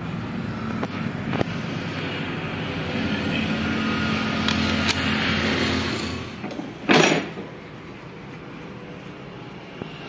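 Steady engine hum that swells a little and then drops away about six seconds in, with a few light metallic clicks over it. A short, loud rush of noise comes about seven seconds in.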